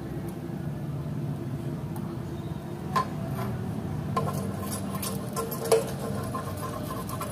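Oil crackling in a Miyako electric skillet while a metal spoon knocks against the pan about three seconds in, then stirs and scrapes across the pan, with a sharp clink of spoon on metal near the end.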